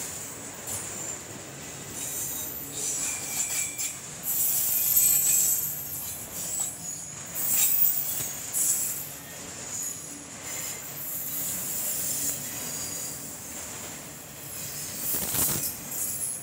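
Freight train of autorack cars rolling past, its wheel flanges squealing in high, wavering tones that come and go over the steady rolling noise of the wheels on curved track. A sharp knock near the end.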